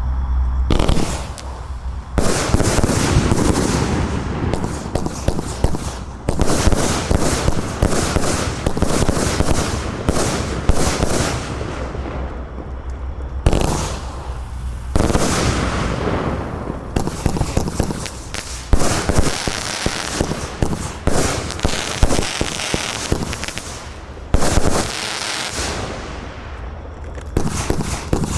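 A 131-shot compound fireworks cake of 25–30 mm shots firing: rapid launches and shell bursts one after another, in dense volleys whose texture changes every few seconds.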